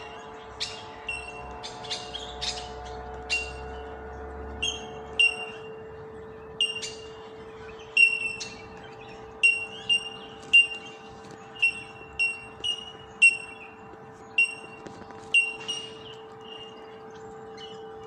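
Bell miners (bellbirds) calling: a chorus of short, high, bell-like "tink" notes from several birds, repeated irregularly at roughly one or two a second, over a faint steady hum.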